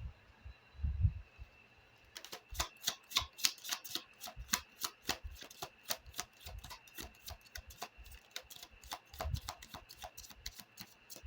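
A deck of oracle cards being shuffled by hand: a rapid, irregular run of card clicks and flicks starts about two seconds in. It follows a soft low thump about a second in, from the deck being handled.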